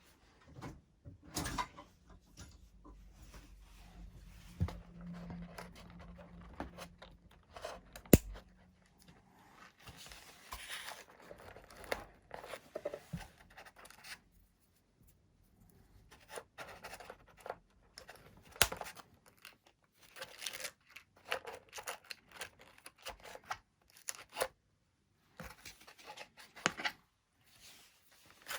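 Hands working on a foam model plane's wiring: irregular scratching, rustling and small clicks of plastic and cable handling, typical of fitting and trimming cable ties. One sharp snap comes about eight seconds in.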